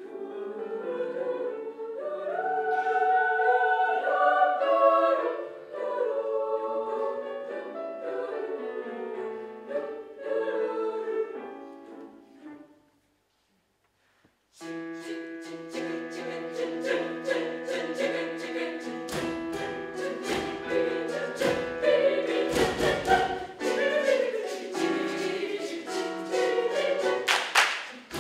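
Children's choir singing in parts. The singing dies away about halfway through, a second or so of dead silence follows, then the choir comes back in, fuller, with many sharp percussive hits over the voices.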